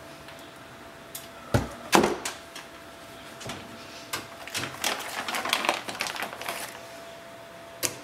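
Handling noise of small hard objects: a few sharp clicks, the loudest about two seconds in, then a quick run of clicking and rattling from about four seconds in, and one more click near the end, over a faint steady hum.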